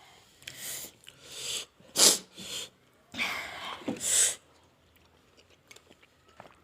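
A person sniffing and breathing out sharply through the nose in about six short noisy bursts, the loudest like a sneeze, from the burning heat of a very spicy curry.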